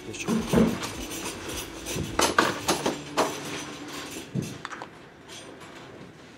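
A few irregular clicks and knocks of small objects being handled, over a faint steady low hum.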